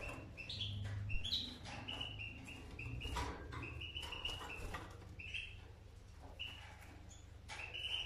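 Canaries chirping in a wire cage: strings of short high notes, some stepping up in pitch, with scattered clicks.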